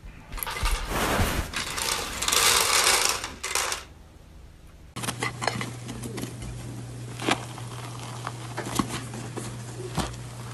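A loud rushing noise for about three and a half seconds. Then come many small sharp crackles and clicks as fingers press and tear open the crust of a chocolate cake, over a low steady hum.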